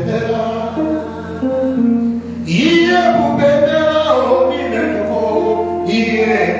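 Church praise singing: a voice holds and bends long sung notes over instrumental accompaniment.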